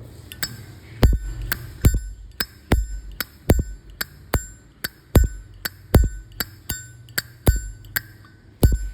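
A Canadian-made Zippo lighter's lid flicked open and snapped shut over and over, giving sharp metallic clinks with a bright ring, about two a second, some with a duller snap.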